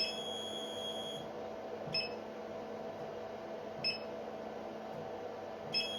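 A 50-watt CO2 laser tube making a high-pitched electrical chirp about every two seconds, the first and last drawn out into a thin whine for over a second, over a steady low hum. The owner takes this noise for a problem with the tube.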